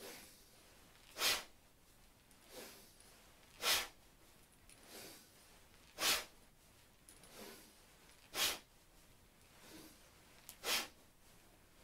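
A person breathing forcefully in time with repeated frog-pose squats. A sharp, loud breath comes about every two and a half seconds, five in all, with a softer breath between each.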